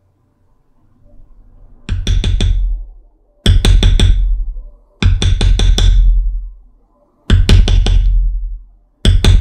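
A mallet striking a leather-tooling beveler on carved leather backed by a granite slab, each blow a sharp tap with a low thud. The blows come in quick runs of four or five with short pauses as the tool is moved along, bevelling the outline of a carved bear figure.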